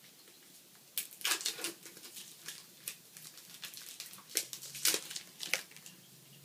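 Small plastic eyeshadow sample and its packaging being handled and worked open by hand: an irregular run of sharp clicks and short scratchy rustles, starting about a second in and stopping shortly before the end.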